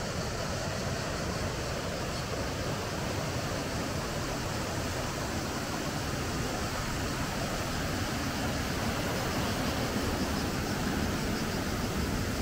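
Fast-flowing river rushing over rapids and a weir, a steady roar of water that grows a little louder about two thirds of the way in.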